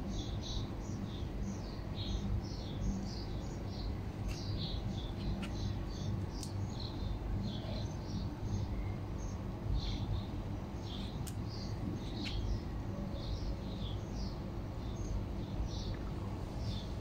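Small birds chirping, many short high notes repeated irregularly and overlapping, over a steady low background rumble.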